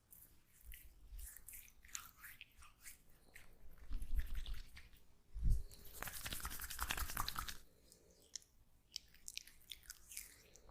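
Oiled hands rubbing and kneading skin close to the microphone: small wet clicks and crackles, a low thump about five and a half seconds in, then a denser stretch of crackling for a second or two.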